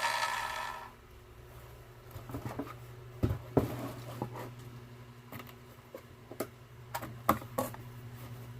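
Lotus LTCS1500X circular saw's motor dying away after a short run, fading out within the first second. Then a low steady hum with scattered light clicks and knocks, like the tool being handled.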